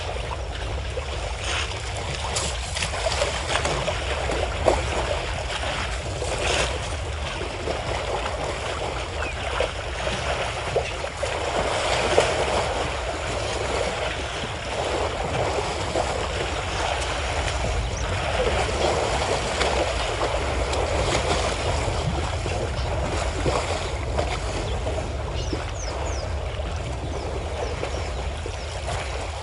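Water splashing and sloshing as African savanna elephants wade, bathe and swim in a waterhole, swelling and easing over a steady low rumble.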